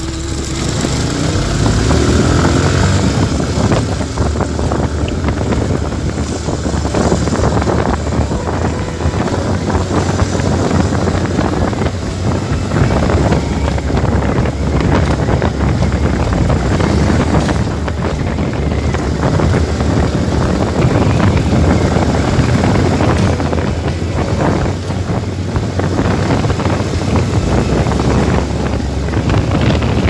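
Wind rushing over the microphone and the engine of the vehicle carrying it, running steadily at road speed, with the engine pitch rising briefly about a second or two in.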